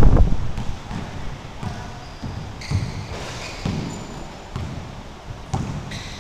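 Basketball bouncing on a hardwood gym floor in a series of irregular thumps as it is dribbled, with a brief high sneaker squeak about three seconds in.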